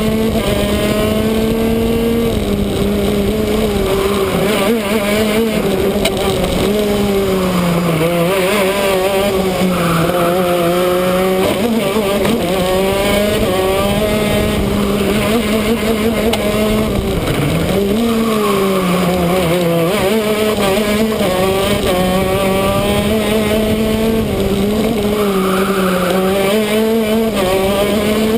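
Shifter kart's two-stroke engine at racing speed, its pitch climbing as it accelerates and dropping sharply several times as the driver brakes and shifts down for corners.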